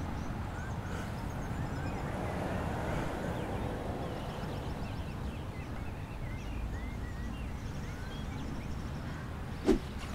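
Outdoor ambience: a steady low background rumble with small birds chirping now and then, and a single short sharp click near the end.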